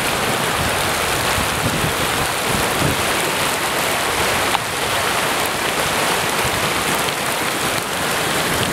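Heavy rain pouring onto a car and the muddy floodwater around it: a steady, unbroken hiss with a few sharper drop hits.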